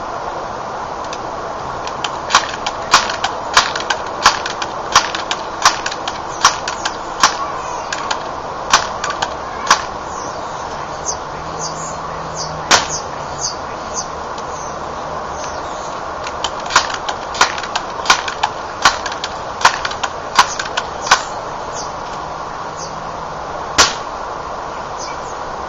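Crosman PowerMaster 760 air rifle being pump-charged, a sharp click with each forend stroke about every 0.7 s, about ten strokes; a single air-rifle shot a little before the middle; then about seven more pump strokes and a second shot near the end, over a steady background hiss.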